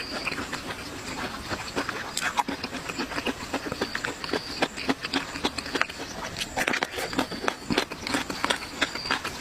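Close-up mukbang eating sounds: raw oysters being chewed and slurped, a steady run of irregular clicks and smacks.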